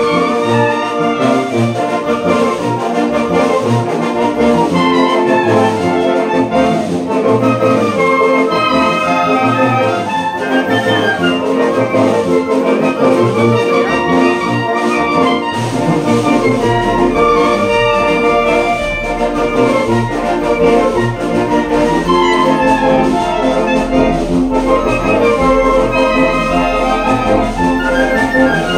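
A Mexican banda filarmónica, a village wind band of clarinets, saxophones, brass, tubas and bass drum, playing a lively piece at full strength, with a steady melody over sustained chords.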